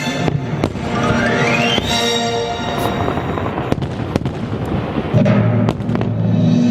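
Fireworks bursting in a string of separate sharp bangs over loud music.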